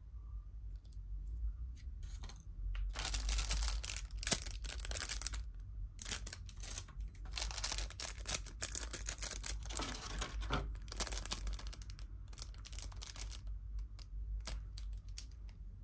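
Thin clear plastic food packaging crinkling and crackling as it is handled, in several bursts of a second or two each. A few light clicks follow near the end.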